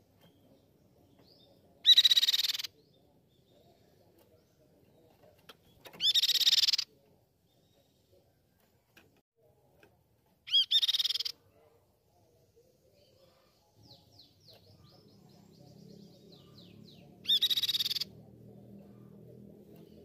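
Crescent-chested babbler (tepus pipi perak) singing in four short, loud, high-pitched bursts, each under a second long and a few seconds apart. Between the last two bursts comes a faint run of quick falling notes, over a low background hum.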